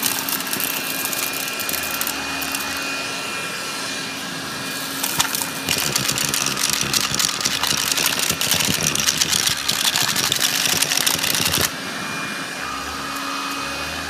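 Hoover Jovis cordless handheld vacuum running on its low setting with the rotating brush head, a steady motor whine under a dense crackle of debris rattling up the nozzle. The crackle gets louder about five seconds in and stops sharply near the end.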